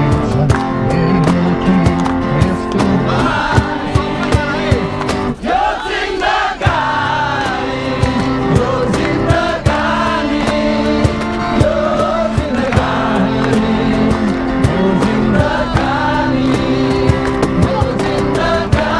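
Acoustic guitars strummed while a man sings into a microphone and the crowd around him sings along.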